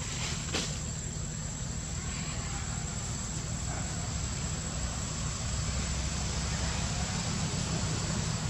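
Steady outdoor background noise: a constant low rumble under a thin, steady high-pitched hum, with one sharp click just after the start.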